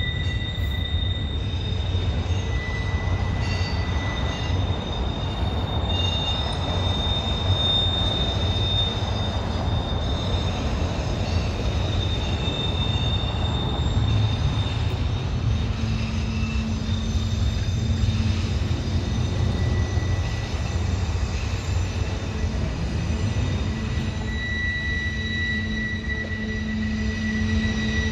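Cars of a long intermodal freight train rolling past with a steady low rumble. Thin, high steady squealing tones from the wheels fade out and return, growing strongest near the end.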